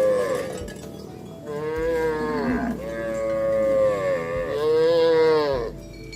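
Cattle mooing: one long call tails off about half a second in, then three more long, fairly high-pitched moos follow almost back to back, each bending down in pitch as it ends.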